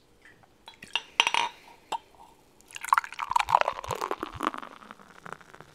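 Beer and glass close to the microphone: a few light clinks, then about two seconds of liquid sounds with several low, short gulp-like thuds.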